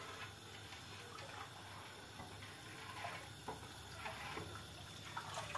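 Quiet kitchen room tone with a steady low hum and a few faint light clicks and taps, most of them in the second half.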